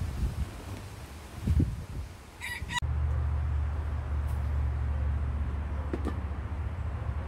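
A low thump about one and a half seconds in, then a short, high pitched bird call lasting about half a second. A steady low rumble then starts suddenly.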